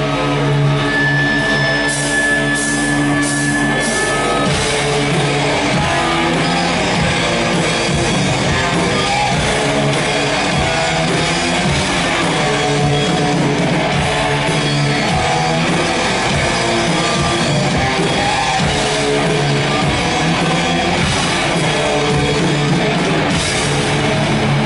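Live rock band playing on electric guitars, bass guitar and drum kit. Held notes ring for the first few seconds, then the full band plays on from about five seconds in.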